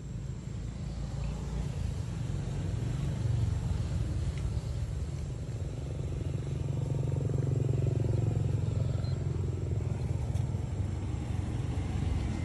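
Low engine rumble of a nearby motor vehicle, growing louder over the first several seconds and then holding steady.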